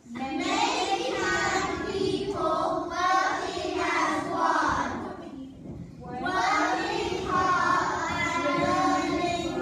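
A group of young children singing together in unison, in two long phrases with a short break about five to six seconds in.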